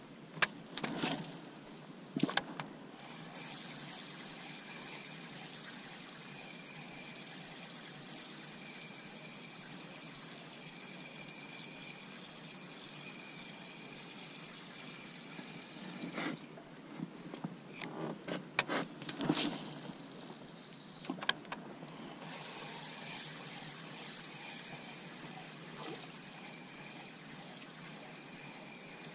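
Spinning reel being cranked steadily, its gears giving a high whirring as the lure is retrieved. The winding stops for several seconds of clicks and knocks in the middle, then starts again.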